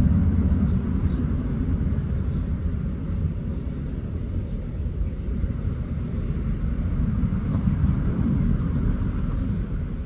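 A steady low rumble that swells slightly and then eases near the end.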